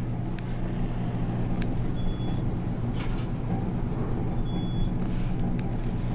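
Elevator car running: a steady low mechanical hum, with a few faint clicks and two short high beeps.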